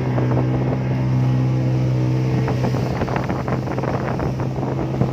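Motorboat engine running steadily, a continuous droning hum at a constant pitch, with rough rushing noise over it in the second half.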